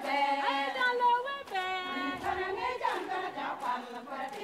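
A group of women's voices singing together, several voices at once, with long held notes.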